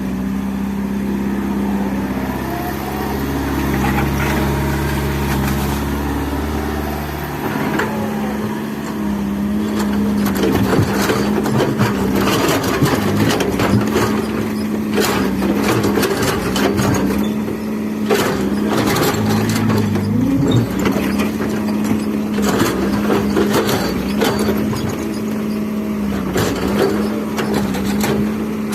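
Excavator's diesel engine running steadily, with a deep rumble for the first several seconds, then many irregular clanks and knocks of metal and material as it works.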